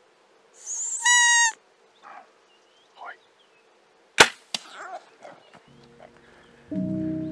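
A short, high-pitched call about a second in, then about three seconds later the sharp crack of a bow shot, followed a moment after by a second, smaller knock. Music comes in near the end.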